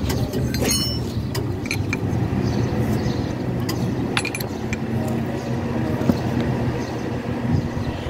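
Short metallic clinks of a wrench working the hydraulic hose fittings on a breaker attachment, heard several times over a steady engine hum running in the background.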